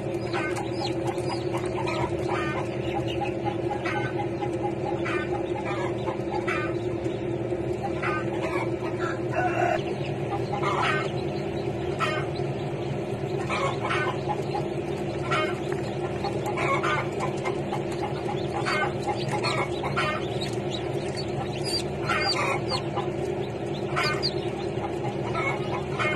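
Chicks peeping in short, high calls, a few each second, over a steady low hum.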